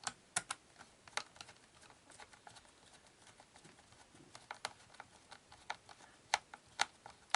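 Irregular light clicks and taps from the plastic case of a clock radio being handled and fitted together, a few of them sharper knocks.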